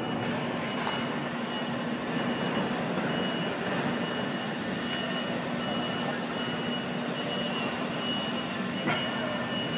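Steady din of setup work in a large exhibition hall: a low machinery hum and a thin, steady high tone, with a couple of faint knocks near the start and near the end.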